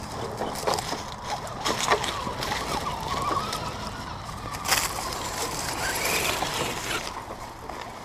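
1/10-scale RC trail trucks crawling over rocks and dry leaf litter: rustling and crunching with scattered sharp clicks and knocks, and a rising-and-falling whine near the middle.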